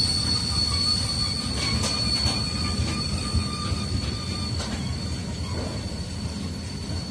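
Long freight train of wagons loaded with steel coils rolling past at close range: a steady rumble of wheels on rail with a thin high-pitched wheel squeal held throughout, and a few sharp clicks about two and four and a half seconds in.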